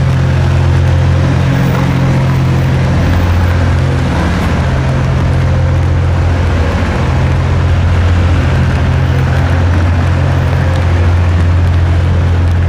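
A motor vehicle's engine running close by, a steady low drone, over general street noise.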